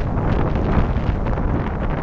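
Wind blowing on the microphone: a steady, noisy low rumble with no bangs.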